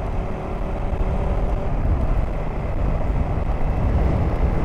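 Riding noise on a KTM adventure motorcycle at road speed: a steady low rumble of wind rush and engine, with a faint steady engine tone in the first couple of seconds.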